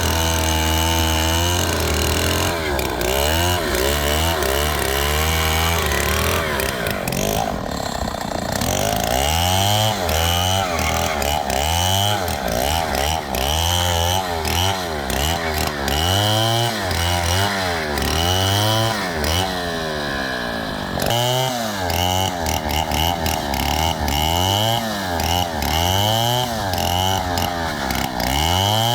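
Two-stroke chainsaw cutting through a palm trunk. The engine is held steady at first, then its speed rises and falls repeatedly, about once a second, as the chain bites and frees in the wood.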